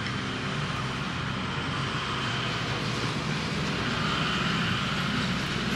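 Steady background vehicle rumble and hiss, growing slightly louder in the last couple of seconds.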